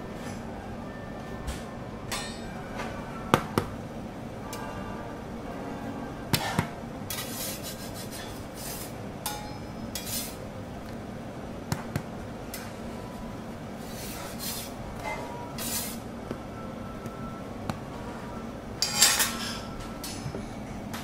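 Metal spatula knocking and scraping on a steel teppanyaki griddle while dorayaki pancakes are turned: scattered sharp clicks and clinks over a steady low hum, with the loudest clatter near the end.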